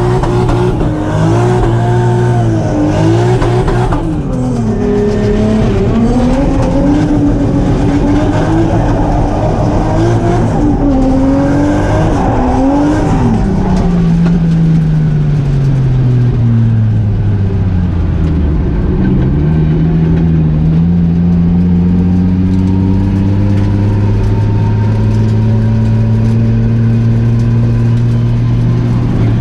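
Drift car engine revving hard, its pitch rising and falling again and again for the first dozen seconds, then dropping to a lower, steadier note that slowly climbs.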